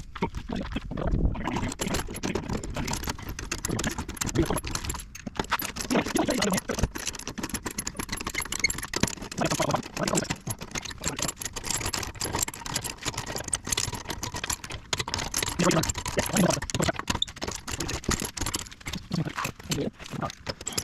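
Irregular metallic clinks, clicks and knocks of hand tools and brake or wheel parts being handled during rear brake work.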